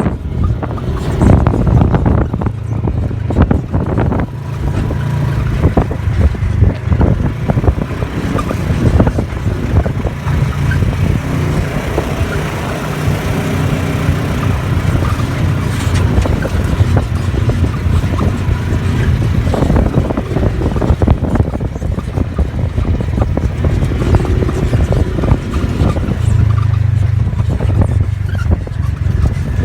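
A motor vehicle's engine running steadily, with frequent knocks and rattles throughout.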